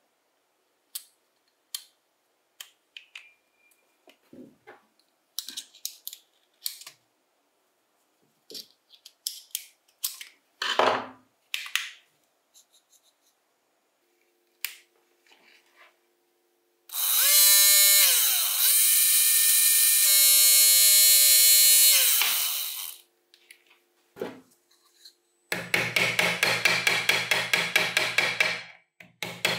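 Scattered clicks and taps of small metal parts being handled. Then a small electric power tool whirs up to speed and back down twice over about six seconds. Near the end a loud, regularly pulsing tool sound follows, several strokes a second.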